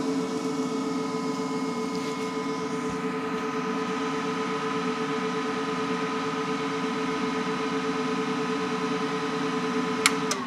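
MIG welder running on a steady bead: an even arc hiss with a steady whine over it, then two sharp clicks near the end as it stops.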